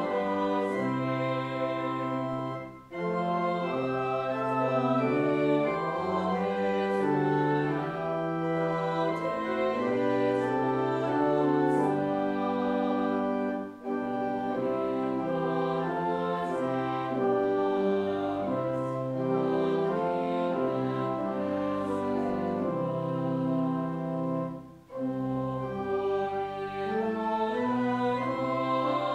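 Church organ playing in held chords that change every second or so, with three brief breaks between phrases.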